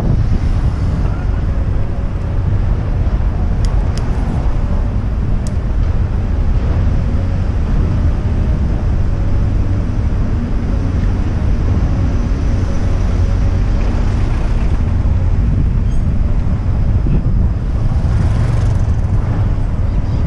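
Steady wind buffeting on an action camera's microphone, mixed with the rumble of tyres rolling on the road surface while riding along a bike lane. A few light clicks come through a few seconds in.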